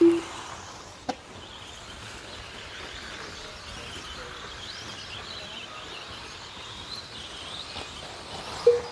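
Outdoor background noise with faint, wavering high chirps. A short low tone sounds right at the start and another, slightly higher, near the end, with a single click about a second in.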